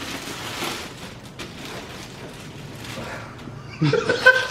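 Crinkling and rustling of plastic gift wrapping being torn open, with a sharp click about a second and a half in. Near the end a man laughs briefly.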